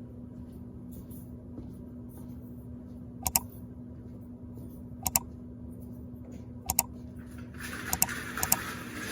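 Sharp double clicks, three times about two seconds apart, over a steady low hum; near the end a hissing rustle with several more quick clicks.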